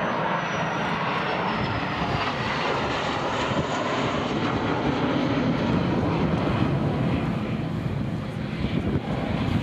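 English Electric Canberra PR9's twin Rolls-Royce Avon turbojets running during a display pass: a steady jet roar, with a faint high whine falling in pitch over the first few seconds.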